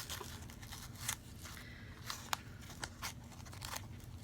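Scissors snipping and packaging being handled while a package is opened: a scatter of short, sharp clicks about every half second to a second.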